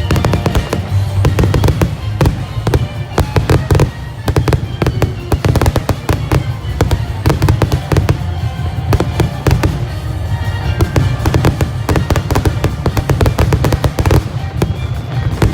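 Dense, rapid barrage of fireworks bursts and crackles, many bangs a second without a pause, with music playing along.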